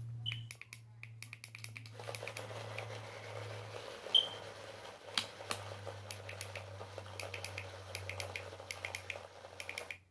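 Portable mini smoothie blender running with a steady low motor hum, a rougher churning noise joining about two seconds in, and many light clicks and taps from the plastic bottles being handled.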